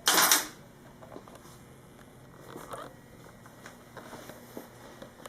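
A short, loud scraping rush right at the start, then faint, scattered small clicks and taps as tools and motorcycle parts are handled around the rear axle.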